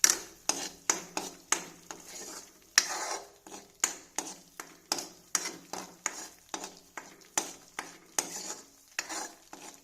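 Metal spoon stirring and scraping a ginger paste around a heavy-bottomed kadhai, clinking against the pan about twice a second. The paste is being roasted in desi ghee until its water cooks off.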